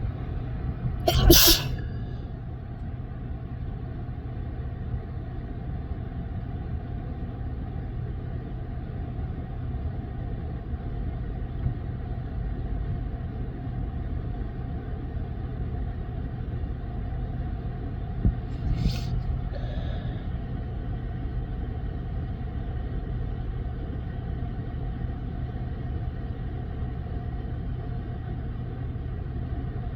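A person sneezes once, loudly, about a second in, over a steady low rumble with a hum. A second, fainter short burst comes a little past the middle.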